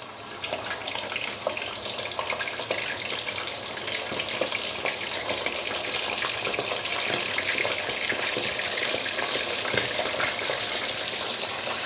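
Raw chicken pieces sizzling in hot oil in an aluminium pot: a steady frying hiss with fine crackles, building over the first second or two and then holding steady.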